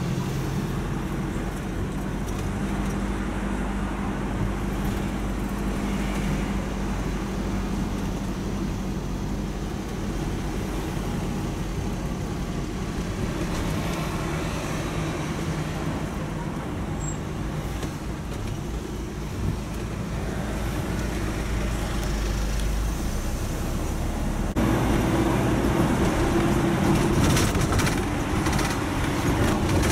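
Road vehicle driving in town traffic, heard from inside the cabin: a steady low engine hum with tyre and road noise. It gets abruptly louder about three-quarters of the way through.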